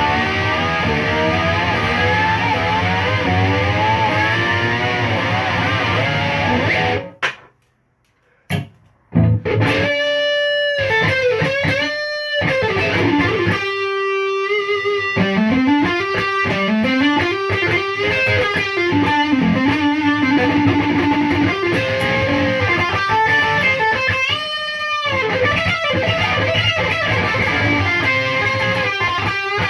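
Distorted electric guitar playing, with a short break about seven seconds in, then notes that slide up and down in pitch.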